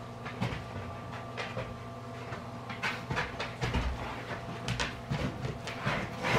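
Dogs sniffing and shuffling about close by: short noisy bursts, most of them in the second half, over a steady low hum.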